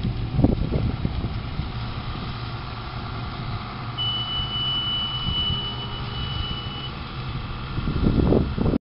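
Engine of a Tecnoma Laser self-propelled crop sprayer running steadily as it drives away across the field. A thin steady high tone sounds for about three seconds in the middle, and low buffeting comes in near the start and again near the end.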